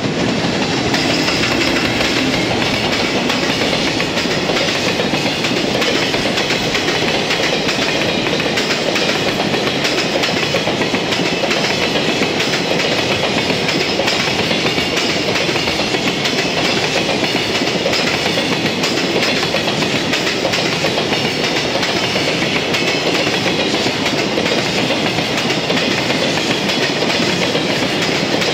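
A JR Freight container train of Koki flatcars rolling past close by, its steel wheels running on the rails in a loud, steady rolling noise with no letup.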